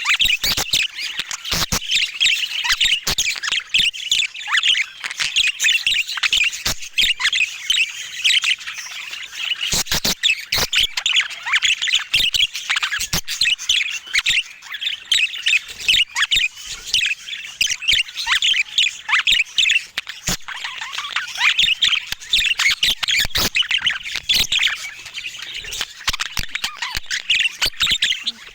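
Budgerigar chatter: a steady stream of quick squawks and chirps, with many sharp clicks mixed in.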